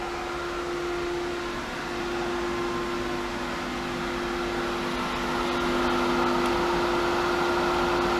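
Hayward Super Pump VS variable-speed pool pump running steadily at about 3,000 RPM, moving water through 2-inch plumbing: a steady motor hum with constant tones over a whirring noise. It gets a little louder about five and a half seconds in.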